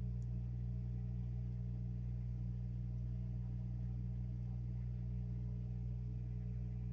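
Water-cooling pump of a CNC spindle's coolant loop running with an ever so slight, steady hum while it circulates coolant through the spindle.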